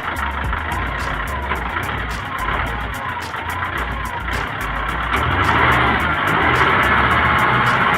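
Excavator engine running steadily, growing louder about five seconds in as it works harder.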